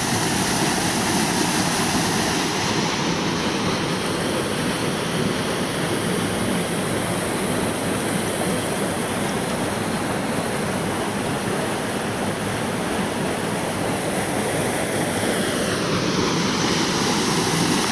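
Waterfall pouring into its pool: a loud, steady rush of falling water.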